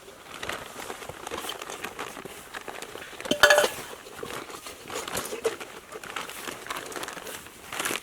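Crinkling and rustling with many small clicks as camp kit is handled, and a single ringing metallic clink about three and a half seconds in, like a pot or cutlery knocking.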